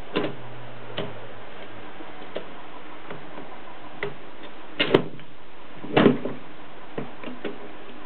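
Irregular metallic clicks and knocks from a Mercedes 3 manual typewriter as its parts are handled and moved by hand, with two louder knocks about five and six seconds in, over a steady background hiss.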